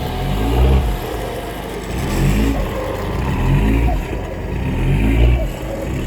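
Off-road SUV engine revving up and down in repeated surges, about once a second, under load while towing a stuck vehicle through a snatch block.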